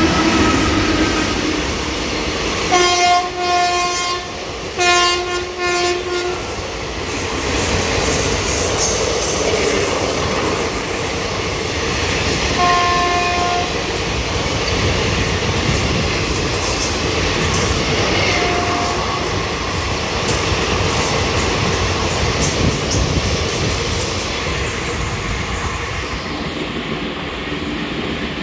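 Indian Railways WAP-4 electric locomotive and its express coaches running through a station at speed, the wheels rumbling and clattering over the rails. Its horn sounds in two blasts about three to six seconds in, a shorter blast around thirteen seconds and a brief toot near nineteen seconds.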